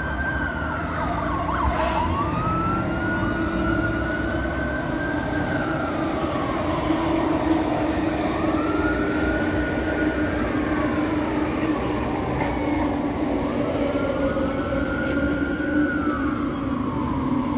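Fire engine sirens wailing, several overlapping tones slowly rising and falling over a steady low drone.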